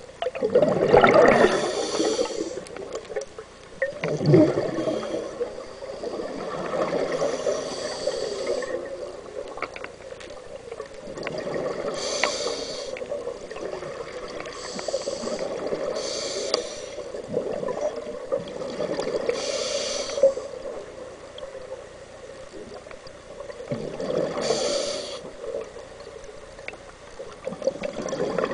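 Scuba diver breathing through a regulator underwater: several breaths, each a hiss of inhaled air followed by a gurgle of exhaled bubbles, at irregular intervals of a few seconds.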